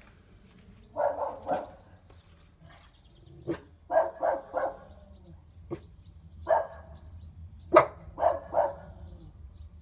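A dog barking in short runs of two or three barks, with single barks between and a few sharp clicks or knocks.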